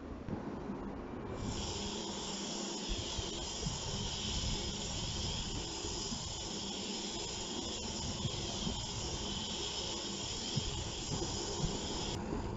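Steady high hiss and whine of a 1/76 micro RC car running, its small electric motor and tyres sounding together, with a short break about twelve seconds in.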